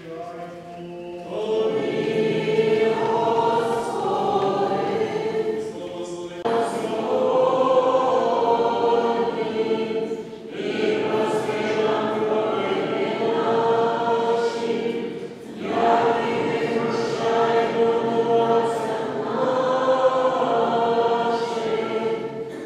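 A choir singing in long held phrases of four to six seconds each, with short breaks between them.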